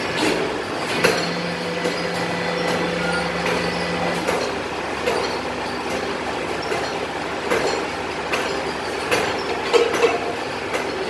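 Hydraulic press power pack running steadily, with a steady hum under load for the first four seconds or so. Scattered metallic clinks and knocks follow, from a pressed aluminium pressure-cooker lid being worked out of a steel die.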